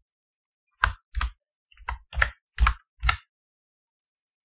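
Six short, sharp clicks at a computer, spaced irregularly about half a second apart, like keys or mouse buttons being pressed.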